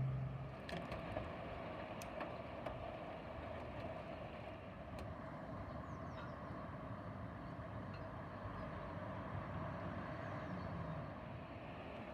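Steady outdoor hum like distant road traffic, with a few faint clicks in the first few seconds.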